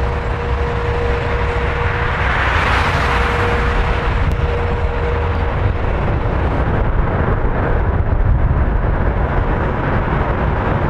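Airbus A380 jet noise, loud and steady, as the four-engined airliner lands and rolls out on the runway close by. A deep rumble runs underneath, with a swell of rushing noise a couple of seconds in. A steady hum fades out about halfway through.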